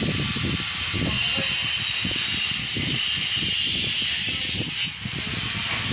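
Wind buffeting the microphone in uneven low gusts over a steady hiss. A higher-pitched hiss comes in about a second in and cuts off suddenly near the five-second mark.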